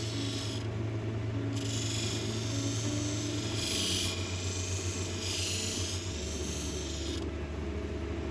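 Opal being sanded on a motorised lapidary wheel to take out scratches: a gritty hiss that comes and goes as the stone is pressed on and lifted off, over a steady low hum, breaking off briefly about a second in and again near the end.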